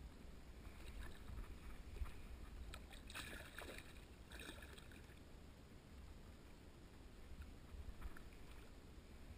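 A large hooked fish splashing and thrashing at the water's surface beside a pier, a short flurry of splashes about three to four and a half seconds in, over a faint low rumble.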